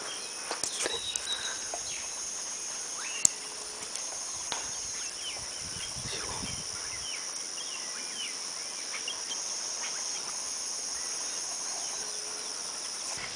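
Countryside ambience: a steady high insect drone with short bird chirps scattered through it. Rustling steps through grass in the first half, and one sharp click about three seconds in.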